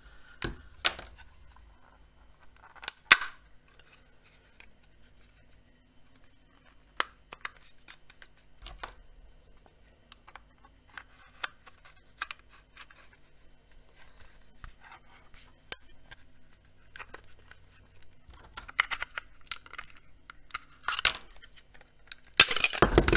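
Plastic pry tool working along the seam of a small handheld fan's plastic housing: scattered clicks and scrapes, with sharp snaps as the shell's clips let go. The loudest snap comes about three seconds in, and a run of loud clicking and rattling comes near the end.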